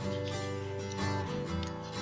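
Background music with sustained notes and chords that change every half second or so.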